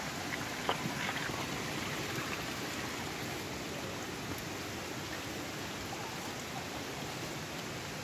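Steady rush of water flowing over rocks in a stream, with one sharp click just under a second in.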